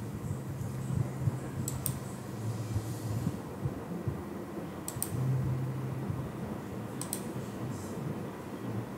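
Computer mouse clicking three times, each click a quick pair of ticks, over a steady low hum of background noise.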